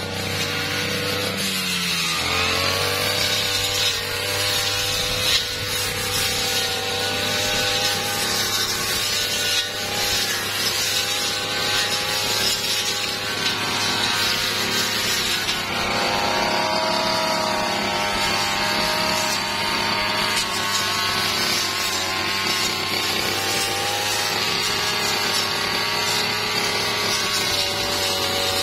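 Brush cutter engine running hard as its blade cuts through woody twigs and branches. The engine pitch drops about two seconds in, then climbs again a little past halfway.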